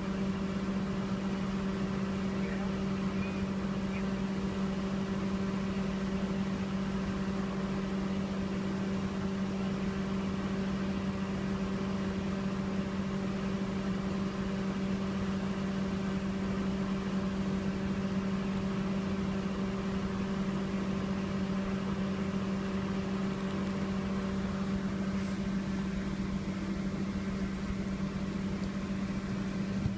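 Steady machine hum with a strong low tone and no change in level, like an engine or motor running at idle.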